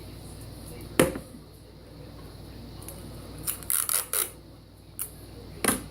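Sharp clicks and knocks of things being handled on a tabletop: one knock about a second in, a quick cluster of clicks a little past the middle, and another knock near the end.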